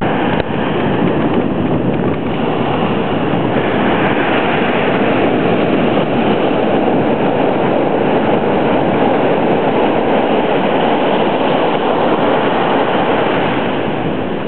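Ocean surf breaking and foam washing up the sand, a loud, steady rush of waves that eases a little near the end.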